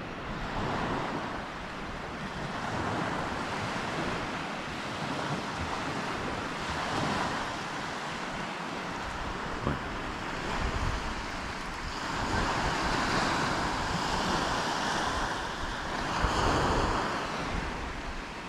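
Small waves breaking and washing up a shingle beach, swelling and easing every few seconds, with wind on the microphone.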